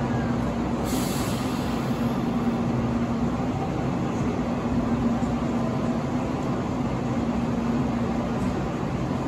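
JR Shikoku 8000 series express train standing still at a platform, its onboard equipment giving a steady hum with a low drone. A short hiss comes about a second in.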